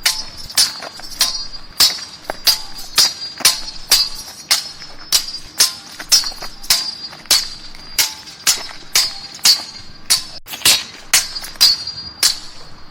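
Steel swords clashing in a fight, a quick run of sharp ringing metal strikes at about two to three a second.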